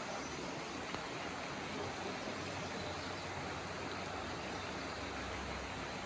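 Shallow creek water running steadily over stones and riffles: a continuous, even rush.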